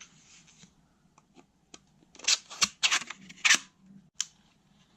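Plastic clicking and scraping as a blue colour filter is handled and fitted onto a small LED video light. A few light clicks come first, then a cluster of sharp scratchy sounds about two to three and a half seconds in, and one last click.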